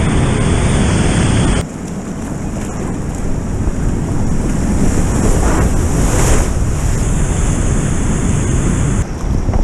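Rushing whitewater heard close on a kayaker's helmet-camera microphone, with wind and splash noise on the mic. The sound changes abruptly about a second and a half in and again near the end, and swells around six seconds in as the kayak drops down the rapid.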